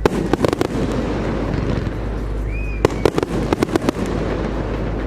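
Fireworks going off in two quick clusters of sharp bangs and crackles, one at the start and another about three seconds in, with a short whistle just before the second.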